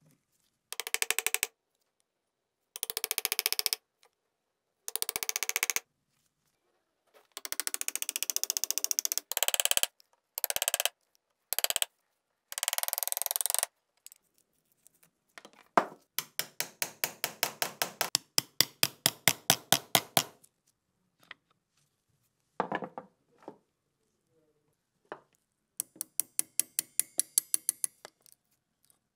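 Steel bench chisel chopping a mortise into a wooden block held in a vise: short runs of quick, sharp taps with silent pauses between them. In the middle comes a longer run of about four taps a second.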